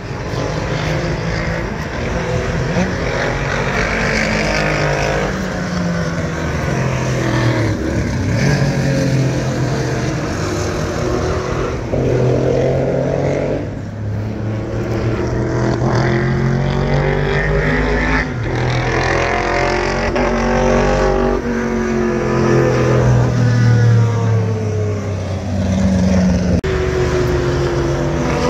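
Classic cars lapping a high-speed banked track, several passing in turn, each engine note rising as it approaches and falling away as it goes by.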